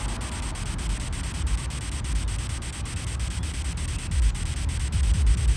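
Ghost-box app static from the GhostTube app: a steady white-noise hiss chopped by fast, even clicks about five times a second as the app sweeps, with a low rumble underneath.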